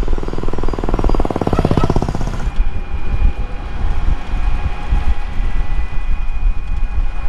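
Ride in a moving e-rickshaw: loud road noise and wind rumbling on the microphone. A rapid puttering engine rattles for the first two and a half seconds, after which a steady high whine runs over the noise.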